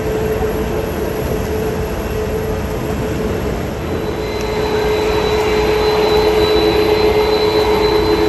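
Jet airliner engines running with a steady hum. About halfway through a high whistling tone joins in and the sound grows louder.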